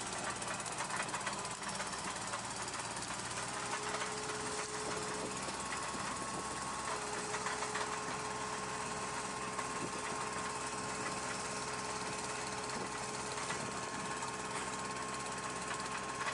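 Compact spider crane's engine and hydraulics running steadily, with a steady whine over the engine noise. The lower tone of the whine drops out briefly about five seconds in.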